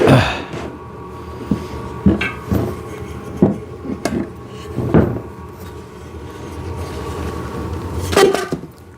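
Knocks and clunks of steel frame pieces of a chest press being handled and set down, about eight separate hits with the loudest right at the start and another near the end.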